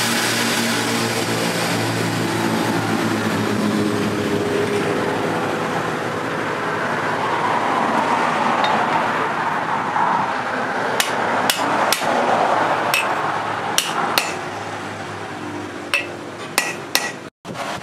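A steady machine noise runs throughout. In the second half a hammer strikes the wooden handle and metal collar of a machete about nine times in separate taps, fitting the handle on.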